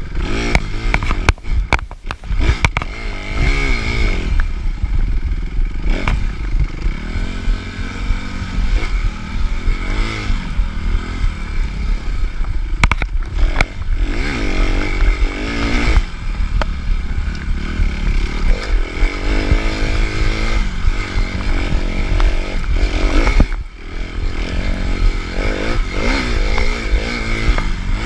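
Suzuki RM-Z250's single-cylinder four-stroke engine revving hard and repeatedly rising and falling in pitch as the dirt bike is ridden off-road, with brief throttle cuts, about two seconds in and again near the end. Sharp knocks and clatter from the bike over rough ground are mixed in.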